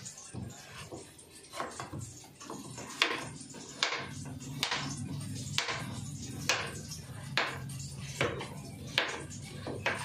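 Kitchen knife chopping through peeled squash flesh onto a plastic cutting board, a sharp chop about once a second, over steady background music.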